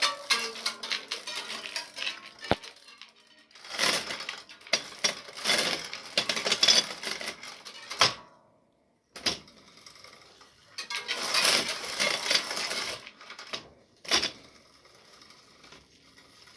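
A bike making rapid metallic clicking and rattling in bursts of one to two seconds with short pauses between, an odd noise the owner doesn't think it is supposed to make.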